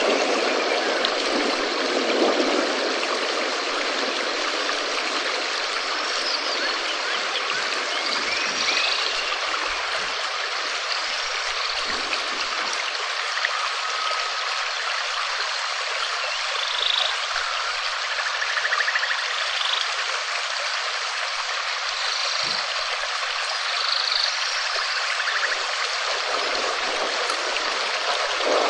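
Steady rain: a dense, even hiss of falling water, with short high bird chirps here and there.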